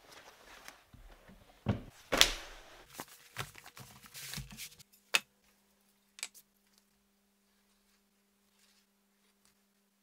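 Leather hides rustling and flapping as they are rummaged through and pulled out of a wooden chest, with a couple of loud thumps about two seconds in. Then the handling stops, leaving a faint steady hum with two sharp clicks.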